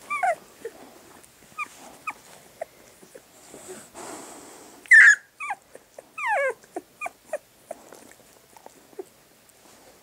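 Young puppies whimpering and squeaking: short, high cries that fall in pitch, scattered through, loudest about five and six and a half seconds in.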